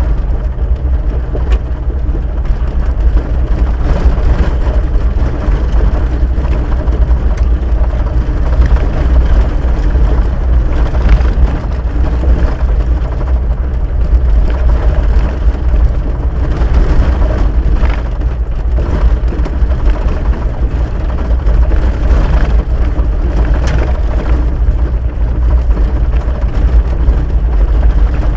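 Vehicle cabin noise on a dirt road: a steady low rumble of the engine and the tyres on the gravel surface, with a few light knocks.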